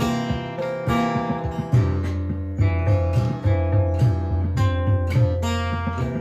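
Music led by a strummed acoustic guitar, with a steady bass, chords struck again every half second or so.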